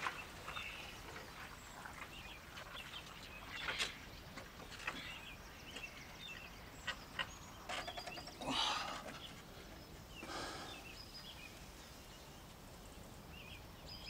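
Faint outdoor ambience with scattered bird chirps. About two-thirds of the way through, a man's pained breaths through clenched teeth come twice as short rushes of breath, the first the loudest sound here.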